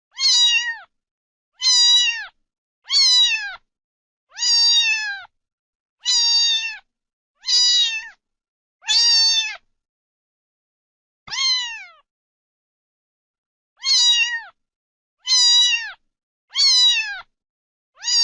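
A kitten meowing loudly over and over, about a dozen high calls, each under a second and dropping in pitch at the end. A longer pause falls about halfway through, and the gaps between calls are dead silent.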